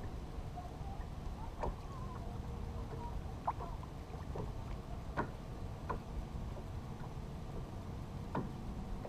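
Low, steady rumble of wind and water around a small fishing boat, broken by a handful of sharp ticks and short squeaks.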